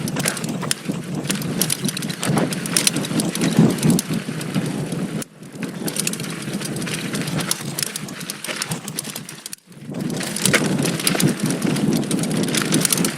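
Giant Stance 2 full-suspension mountain bike descending a rutted, loose dirt trail: tyres crunching over dirt and rocks and the bike rattling over the bumps, with a clatter of sharp knocks throughout. The noise drops out briefly twice, about five and ten seconds in.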